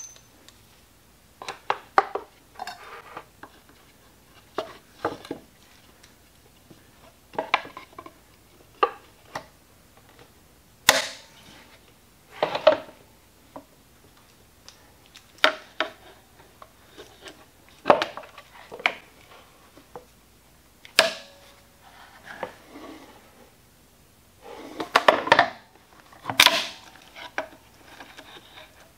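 A series of irregular metal clicks and knocks as locking C-clamps are handled, set and snapped shut on a wooden press board clamping a glued leather belt joint. The busiest clatter comes near the end.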